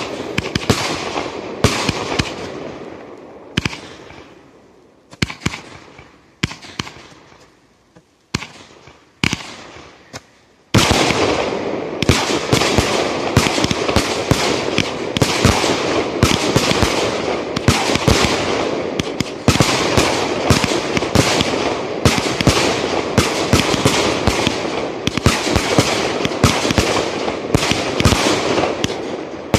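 Fireworks display, aerial shells bursting with sharp bangs. The bangs thin out to a few scattered reports in the first third, then about ten seconds in a dense, rapid run of many overlapping bangs starts suddenly and keeps up.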